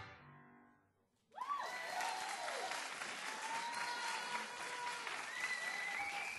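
Music fades out in the first second. About a second and a half in, an audience breaks into applause, with some voices cheering over the clapping.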